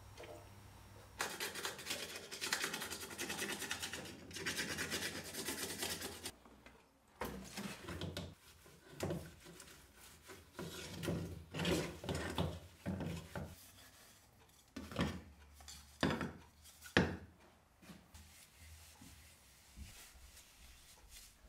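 Hand scraping old gasket sealant off a metal engine cover plate: a run of rapid scraping strokes about a second in, then slower, separate scrapes and rubs, a few of them sharper, and quieter rubbing near the end.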